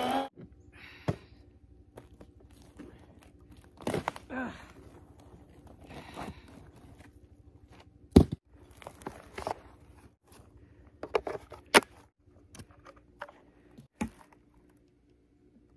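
A battery chainsaw's electric motor whine cuts off right at the start. Then comes rustling and crunching of footsteps on dry pine needles, with scattered knocks of cut log rounds being handled and tossed. The sharpest thud is a round landing about eight seconds in.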